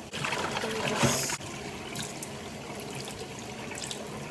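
Tap water running into a sink while a bowl is rinsed under it. The splashing is louder for the first second or so, then the stream runs on steadily and softer.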